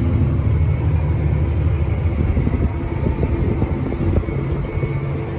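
Vehicle engine running steadily with a low rumble.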